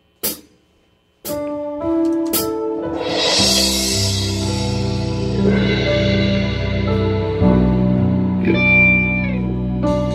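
Electronic keyboard playing a slow introduction: sustained chords over a held bass line with notes changing on top, starting about a second in after a short click.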